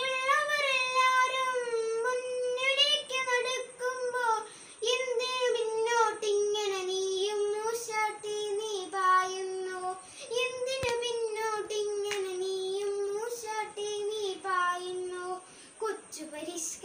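A boy singing a Malayalam song unaccompanied: a single child's voice in short phrases, holding and bending its notes.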